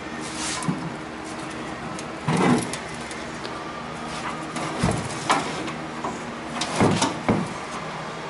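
A few short clunks and scrapes from a rusted steel car fender being handled, over a steady low hum.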